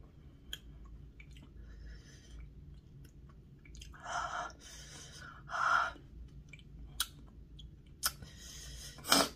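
Close-up mouth sounds of someone eating a very spicy chocolate bar: wet clicks and smacks from chewing, two hard breaths out through an open mouth about four and five and a half seconds in, and a sharp breath near the end, as she reacts to the heat.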